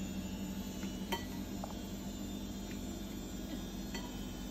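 Steady low electrical hum, with a few faint light taps of a plastic rice paddle against a dish of rice.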